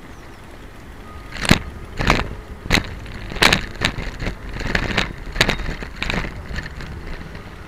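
Bicycle knocking and rattling as it rolls over an uneven path: a run of about nine sharp knocks, roughly one every half to two-thirds of a second, starting about a second and a half in, over a low rumble.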